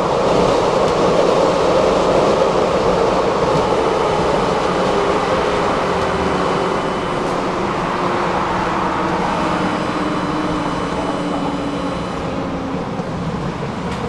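Interior running noise of a low-floor electric tram rolling along its rails: a steady rumble and hiss. From about four seconds in, a faint electric motor whine falls slowly in pitch as the tram slows.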